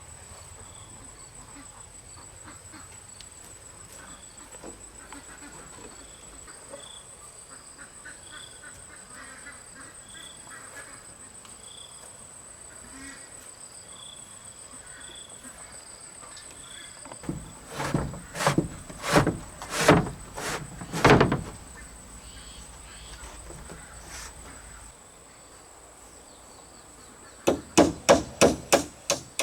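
Hammer blows on the coop build: a loose handful of strikes about two-thirds of the way in, then a quick, even run of strikes near the end. A steady high-pitched insect drone runs underneath.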